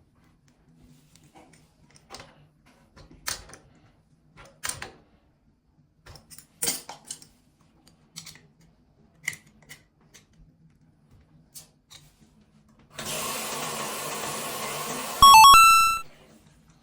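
Scattered light clicks and knocks of plumbing fittings being handled, then a steady hiss for about three seconds, ending in a loud, short electronic beep tone.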